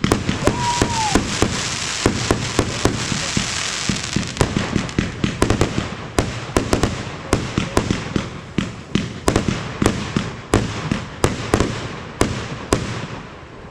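Fireworks going off in a rapid barrage: many sharp bangs and pops a second over a steady hiss, thinning out near the end.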